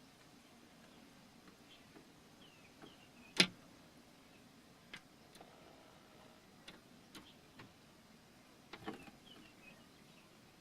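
A bird tapping on a Toyota Prius: scattered sharp clicks, one much louder about three and a half seconds in. A few faint short descending chirps come between the taps.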